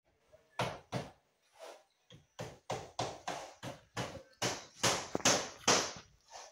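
A quick run of sharp knocks, a few scattered at first, then about three a second, louder in the second half.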